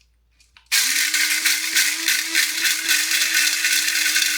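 Electric mini blender cracking whole black peppercorns: the motor starts under a second in and runs steadily, with the hard peppercorns rattling against the blade and jar.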